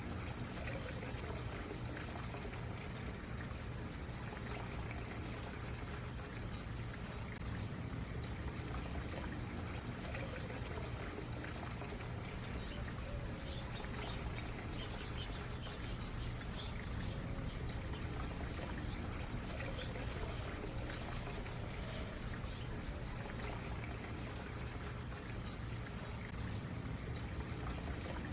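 Small stream running steadily over stones, a continuous trickling and gurgling of water.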